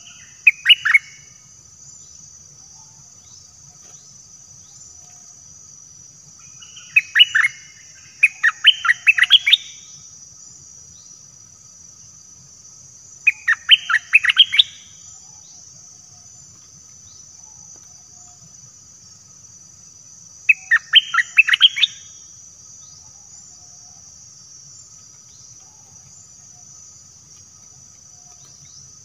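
A bulbul singing short bubbly phrases of quick rising notes in four separate bursts, several seconds apart, over a steady high-pitched drone of insects.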